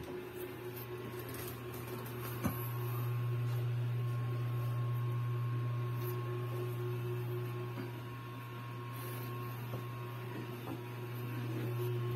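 Steady low electrical hum with a faint higher steady tone over it, and one light knock about two and a half seconds in.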